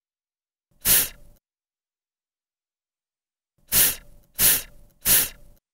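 A voice sounding the letter F, a breathy 'fff', in short puffs: once about a second in, then three in quick succession near the end.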